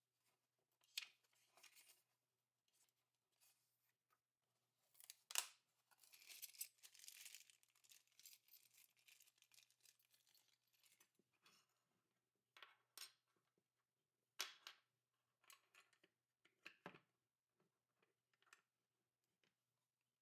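Quiet handling noises: scattered sharp clicks and knocks, with a stretch of rustling and scraping about six to eleven seconds in.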